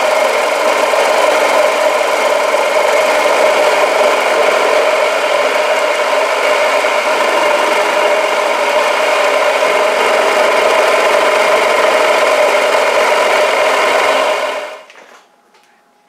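Vertical milling machine cutting the side of a metal block held in its vise: a steady mechanical running sound with several held tones, which stops about two seconds before the end.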